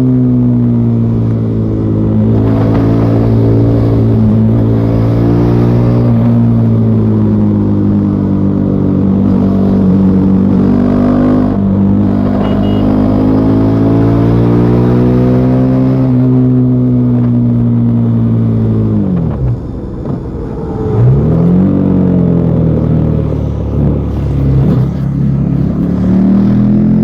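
Bajaj Pulsar NS400Z's single-cylinder engine through its stock exhaust, under way: the note climbs and falls as the throttle is opened and eased off. About two-thirds through it drops back briefly with quick swoops in pitch as the throttle closes and it shifts down, then climbs again near the end.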